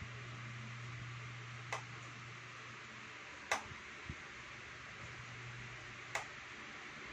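A steady low hum and hiss, broken by four short sharp clicks spread unevenly through it.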